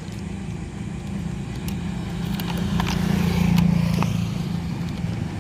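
An engine running steadily nearby, with a low pulsing hum that swells toward the middle, and a few sharp clicks and taps over it.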